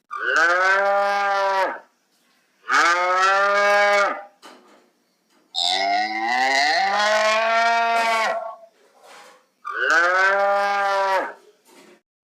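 Cattle mooing: four drawn-out moos a few seconds apart. The third is the longest and has a second animal's call overlapping its start.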